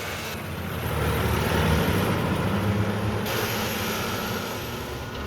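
Diesel engine of a Mack front-loader garbage truck running with a low rumble, its revs rising about a second in and then slowly easing off.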